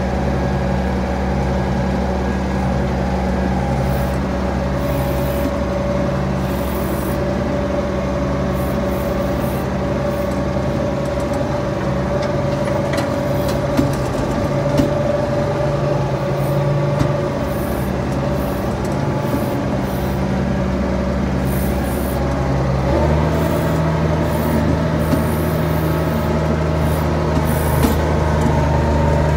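Diesel farm tractor engine running steadily. About 23 seconds in its note changes abruptly, then holds steady again.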